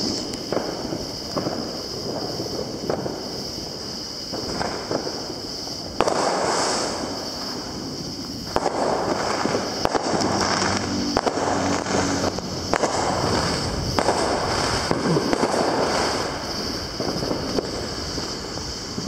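Neighbourhood fireworks being let off: repeated bangs and pops, with a sharp bang about six seconds in followed by a couple of seconds of crackling, and more crackling bursts later.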